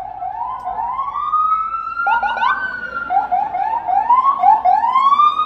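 Ambulance siren passing, a long wail slowly rising in pitch, broken by runs of short quick rising yelps at about four a second, then rising into a long wail again near the end.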